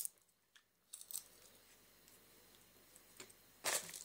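Roasted sunflower seeds being handled and cracked: a sharp click at the start, then faint scattered crackles of seed shells, and a louder short rustle near the end as fingers dig into the paper bag of seeds.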